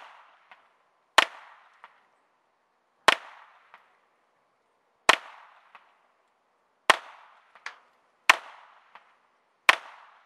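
Six single shots from a Smith & Wesson 22A1 semi-automatic .22 LR pistol, spaced about a second and a half to two seconds apart. Each sharp crack is followed by a much fainter one about half a second later. The shooting runs until the magazine is empty.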